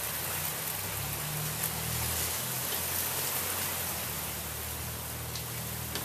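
1980 Casablanca Victorian ceiling fan running, a steady rush of air from its spinning blades over a low motor hum.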